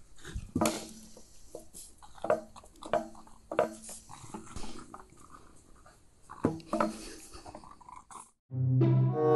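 A dog moving about, with irregular knocks and thumps and a few short high sounds; music comes in near the end.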